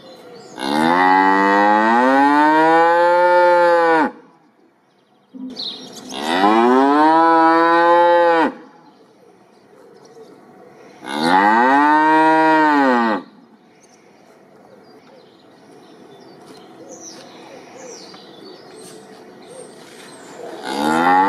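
Cow mooing: three long lowing calls a few seconds apart, each rising then falling in pitch.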